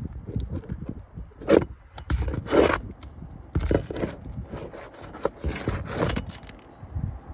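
Asphalt roof shingles being worked by hand, making several irregular scrapes and rubs with a few sharp ticks between them.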